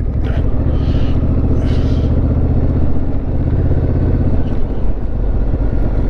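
Motorcycle engine running steadily at an even pitch while riding, with a haze of road and wind noise.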